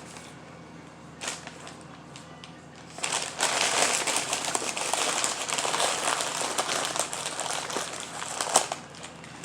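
Paper and wrapper packaging crinkling and rustling as leftover french fries are put away. It starts about three seconds in and runs for about six seconds, with a sharper click near the end.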